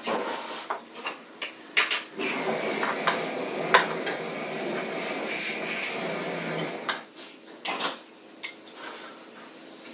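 Spoons and chopsticks clinking and scraping against ceramic plates and bowls as people eat, in sharp separate clicks. A steady rushing noise runs for about five seconds in the middle.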